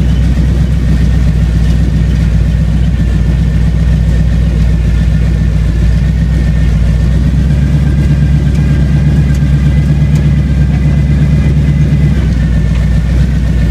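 Car engine idling, a steady low drone heard from inside the cabin, with a faint high whine from about three seconds in.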